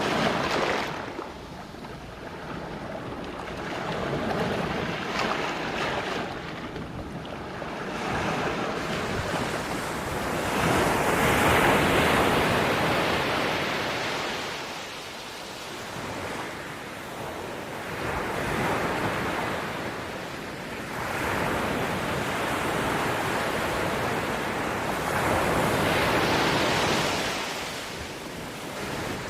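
Sea waves breaking on a rocky shore, the surf swelling and washing back in surges every few seconds, with some wind on the microphone.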